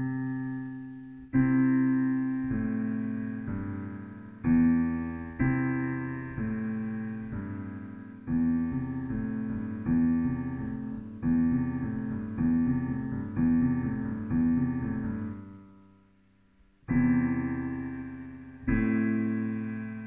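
88-key digital piano played in slow, low chords, each struck and left to ring and fade. Through the middle the chords come steadily about once a second, then there is a short break before more chords near the end.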